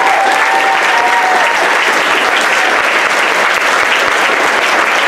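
Audience applauding, with steady dense clapping.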